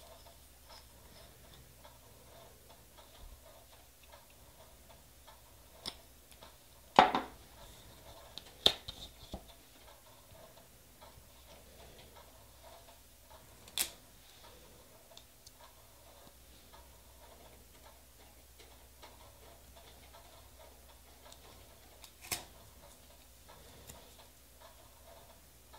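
Occasional sharp clicks and taps as nail stamping tools and polish bottles are handled on a tabletop: a loud knock about seven seconds in, another soon after, then single clicks further apart. A faint steady hum lies underneath.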